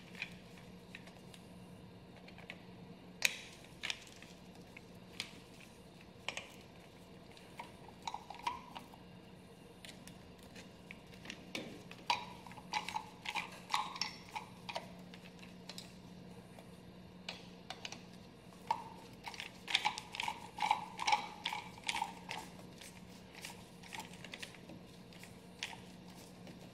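Hand screwdriver turning the small screws that hold a plastic amber marker-light lens to its housing: irregular small clicks and taps with short squeaky bursts that bunch up about halfway through and again near the end. A faint steady low hum runs underneath.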